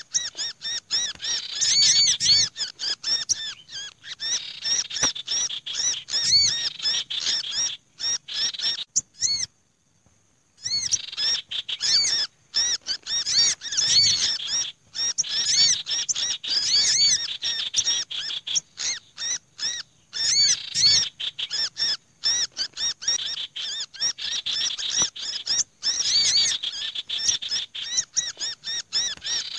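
Bird-lure call track for small birds: common iora harsh chattering, olive-backed sunbird noisy calls and black-naped monarch distress ('pinched') calls layered into a dense, continuous chorus of high chirps and rattles. The chorus breaks off for about a second roughly a third of the way in.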